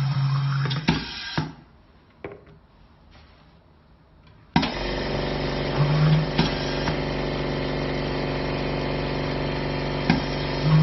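Clunks and clicks of a pneumatic filling machine, then about halfway through a motor starts suddenly and runs with a steady drone, typical of an air compressor supplying the pneumatic system, with a few sharp clicks over it.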